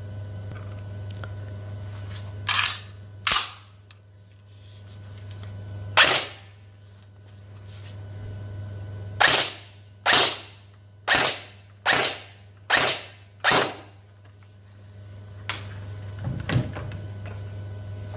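A&K M1 Garand AEG gel blaster firing single shots: nine sharp shots in all, two close together, a lone one a few seconds later, then a run of six about one a second. Each shot dies away in a short tail. A few light clicks follow near the end.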